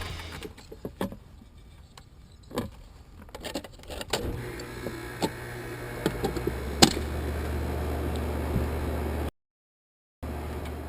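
A few sharp clicks and knocks, then from about four seconds in a steady low mechanical hum, with a loud click near the seventh second.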